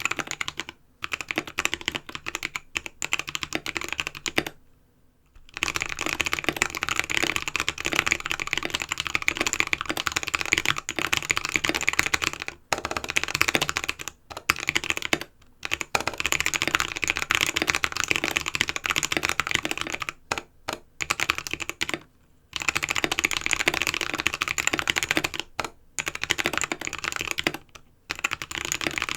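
Modded Anne Pro 2 mechanical keyboard with lubed Halo Clear switches, steel plate, aluminum case and XDA PBT keycaps, typed on directly on the desk without a mat. Slower keystrokes stop for about a second near the start, then fast, continuous typing follows with a few brief pauses.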